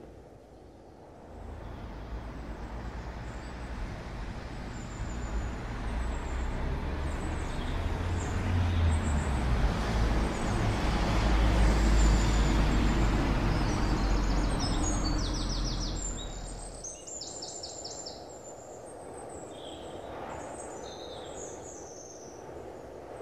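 Low rumble of a passing vehicle that builds over about ten seconds and fades away, with birds chirping throughout and a run of quick repeated bird calls as the rumble dies.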